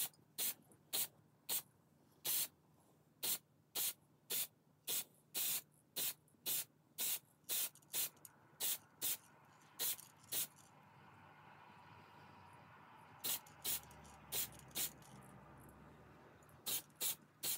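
Aerosol can of matte spray paint hissing in short quick squirts, about two a second, as a ball is coated. The squirts stop for about three seconds just after the middle, then come back in two short groups near the end.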